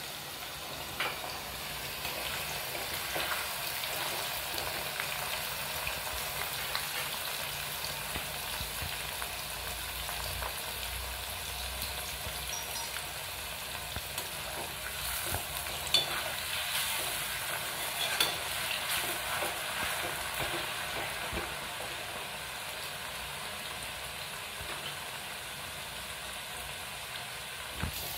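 Thin potato slices deep-frying in hot oil in an aluminium kadai, a steady sizzle with bubbling, and a few sharp clicks from a slotted skimmer against the pan past the middle. The sizzle is the potatoes still cooking; it dies down once they are done.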